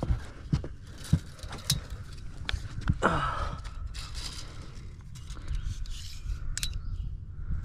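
Handling noise as a muskie is held down on a carpeted boat deck and measured with a tape: a few light knocks and scrapes, mostly in the first couple of seconds, over breathing and rustling.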